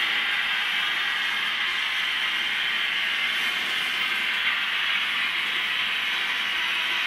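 Märklin model trains running: small electric locomotive motors and gears whirring, and metal wheels rolling over the track, making a steady, dense rattle.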